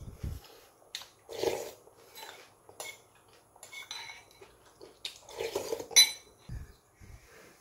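Eating utensils clinking and scraping against a bowl in scattered short clinks, with a couple of slightly longer scrapes about a second and a half in and again near the six-second mark.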